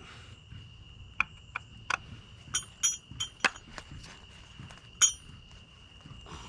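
Hand tools clinking against one another in about a dozen sharp, irregular clinks, some with a short metallic ring. The loudest comes about five seconds in.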